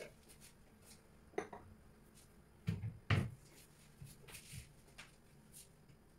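Kitchen cupboard being opened and rummaged in: a few scattered knocks and clicks, the loudest two close together about three seconds in, then lighter taps.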